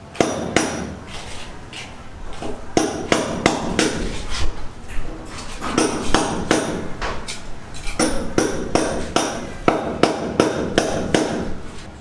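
Hammer blows on a building site: a run of sharp, uneven strikes, about two or three a second, with short pauses between groups.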